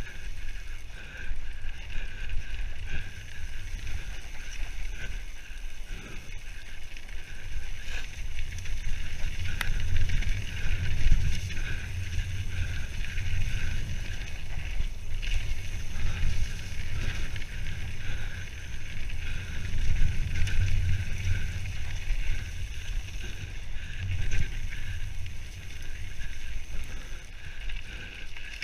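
Mountain bike descending a dirt and gravel forest trail at speed, heard from a camera on the rider: steady wind rumble on the microphone and tyre roll, with scattered knocks and rattles from the bike over the rough ground.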